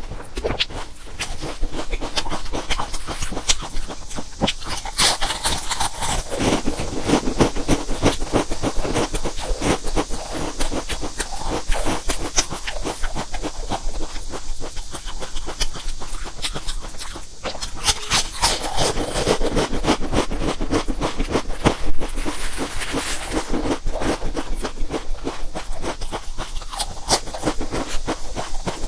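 Close-miked chewing and crunching of stacked potato chips: a dense, irregular run of crisp crackles.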